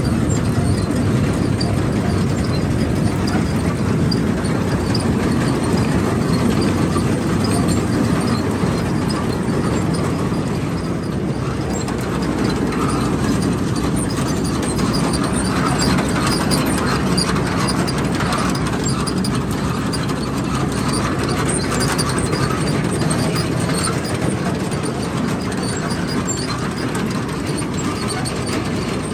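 New Idea corn picker running off a tractor's PTO, a steady mechanical run over the tractor engine with a light rattle of chains and moving parts throughout. The slip clutch, cleared of packed dirt, is no longer tripping: everything is working.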